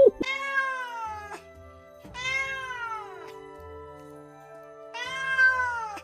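A domestic cat meowing three times, each meow about a second long and falling in pitch, over steady background music.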